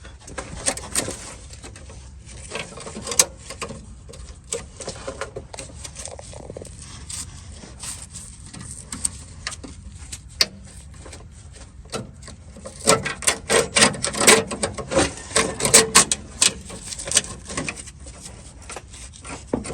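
Metal brake line being pulled and worked through under a car, giving scattered clicks, taps and scrapes as it rubs and snags on the underbody. A busier burst of rattling clicks comes about 13 seconds in and lasts a few seconds.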